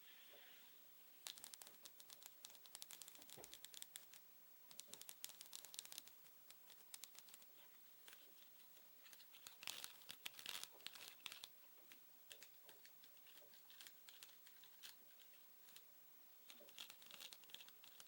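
Faint, soft crinkling of a thin material being handled, coming in short clusters of fine crackles a few seconds apart.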